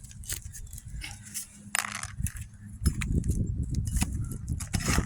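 Scattered sharp clicks and a brief scrape of a metal nail-pulling tool working under a roof shingle to draw out a nail, with a low rumble from about three seconds in.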